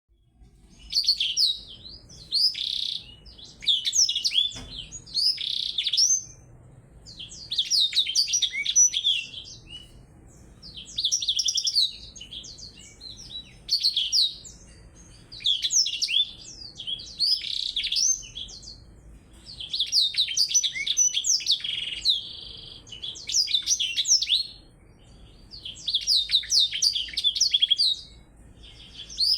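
Caged songbirds singing: phrases of rapid high twittering, each about a second long, repeating every couple of seconds with short pauses between.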